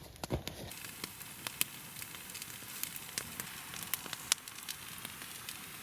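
Rehydrated hash browns frying in a pan over a campfire: a steady sizzle that sets in just under a second in, with scattered pops and crackles.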